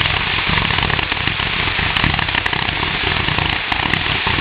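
Fireworks crackling: a dense, continuous stream of rapid small pops that holds steady throughout, with no single large bang standing out.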